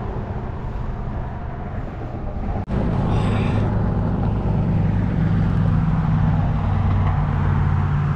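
A steady low engine rumble that gets louder after a brief dropout about two and a half seconds in.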